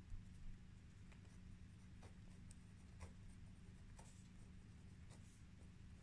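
Pen writing on paper: faint, short scratchy strokes at about one a second, with smaller scratches in between.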